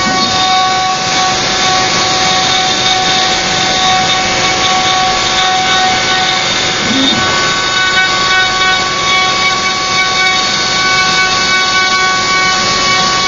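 Router on a Joe's 4x4 Hybrid CNC machine carving a 3D relief into a wooden board. The router motor gives a steady whine, mixed with the rasp of the bit cutting wood.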